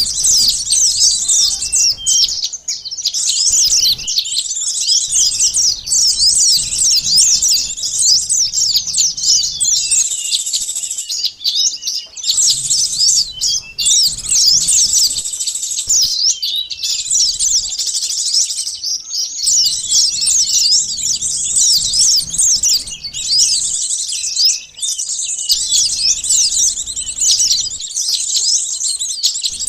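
Dense, continuous chattering of many small birds: rapid high-pitched chirps and short trills overlapping without pause, with only brief gaps. It is a bird-luring call track meant to draw small wild birds such as sunbirds.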